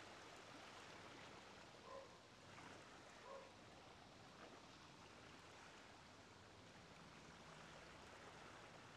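Faint ocean waves: a soft, even wash of surf.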